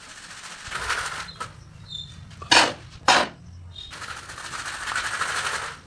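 Sand-and-cement mix being shaken through a large round hand sieve: a rasping hiss of grains sifting through the mesh, broken in the middle by two loud sharp knocks about half a second apart.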